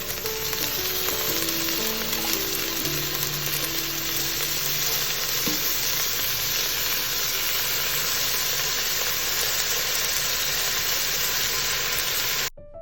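Washed basmati rice sizzling steadily as it fries in hot ghee and oil with whole spices, its water cooking off. The sizzle cuts off suddenly near the end.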